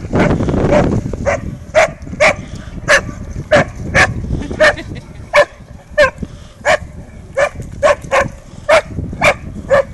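A dog barking over and over in short, evenly spaced barks, about one to two a second. A rush of noise in the first second.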